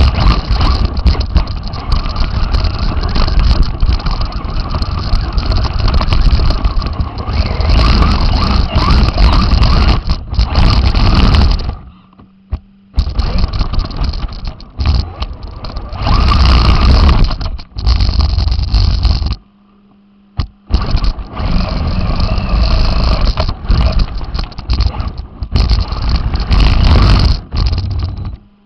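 Radio-controlled car driving over rough ground: loud, rattling running noise that cuts out twice, about 12 and 20 seconds in, leaving only a low steady hum before it starts again.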